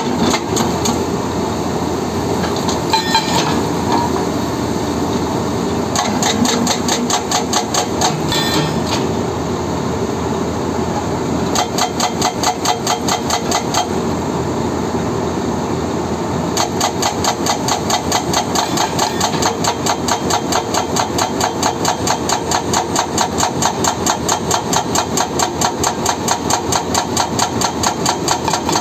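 Excavator-mounted hydraulic rock breaker hammering rock in rapid, even blows over the excavator's engine running steadily. The hammering comes in short bursts in the first half, then runs without a break from a little past halfway.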